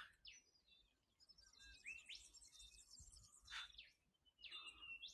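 Faint birdsong: scattered short, high, sweeping calls from several birds, with a quick run of chirps about two seconds in.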